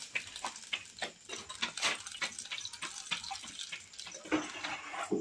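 Water poured from a steel mug into an aluminium cooking pot on a gas stove, splashing with many irregular small clicks and crackles.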